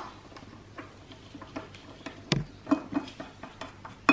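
Scattered light metallic clicks and one louder knock from small bolts, a metal mounting plate and a socket wrench being handled while a taillight mounting plate is bolted onto a motorcycle tail tidy.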